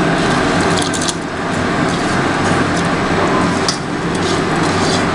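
Rice being dropped by hand into a pot of dal and water, with a few light ticks and splashes over a steady rushing noise and low hum.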